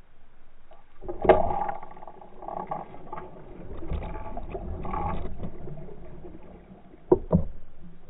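Water splashing and churning as a large pike strikes a topwater lure, heard through a half-submerged camera. It starts with a sudden loud splash about a second in and keeps thrashing for several seconds, then two sharp knocks come near the end.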